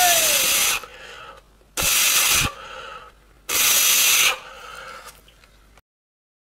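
Three loud hissing rushes of noise, each under a second, about every second and a half to two seconds; the sound cuts off suddenly near the end.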